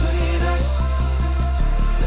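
Background music with a steady, pulsing beat and heavy bass.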